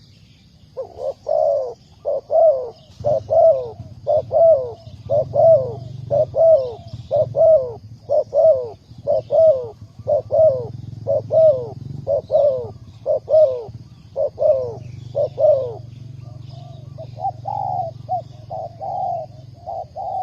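Spotted dove cooing: a long series of repeated, evenly spaced coos, about one a second, that turns into a looser run of softer notes near the end.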